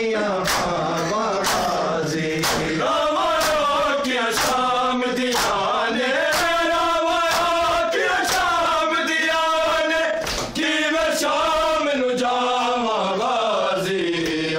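Male voices chanting a noha (Shia lament) in Punjabi/Urdu with long held, wavering notes, punctuated by sharp slaps of hands striking bare chests in matam at about one a second.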